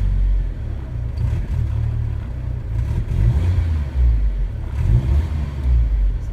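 Car engine running unevenly and being revved from idle, with surges about three, four and five seconds in. It stumbles as the throttle opens, the sign of a hesitation off idle and a misfire.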